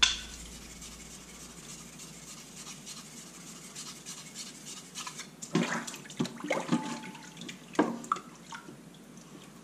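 Water splashing and running in a sink, then several short wet scraping strokes about halfway through, as a King 1000/6000 waterstone is lapped flat on a coarse 325-grit diamond plate.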